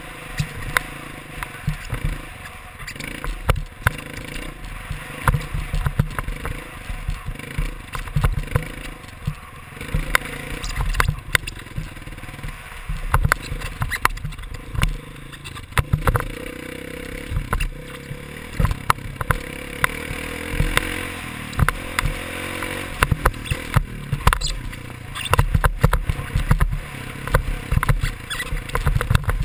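Motocross dirt bike engine revving up and down as it is ridden over a bumpy dirt track, heard close from the rider's camera, with frequent sharp knocks and rattles from the bumps.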